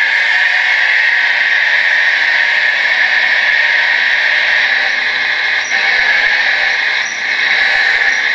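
Small electric drive motors and gearboxes of a radio-controlled Bruder CAT D5G toy bulldozer whining steadily as it drives on its tracks and pushes into gravel, with a few brief dips in the second half.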